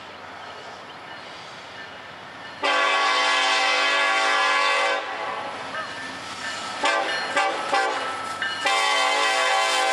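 A diesel locomotive's air horn. It is the lead unit of a freight train, Norfolk Southern's Savannah & Atlanta heritage unit. After a low rumble of the approaching train, the horn gives one long blast, then a few quick short blasts, then another long blast that is still sounding at the end.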